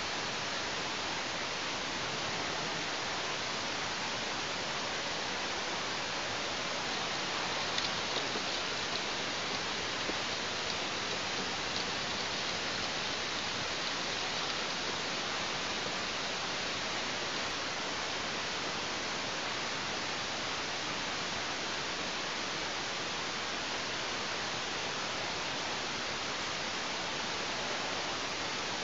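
Steady, even hiss of background noise, with no distinct calls or knocks. A few faint, slightly brighter sounds come through between about 8 and 15 seconds in.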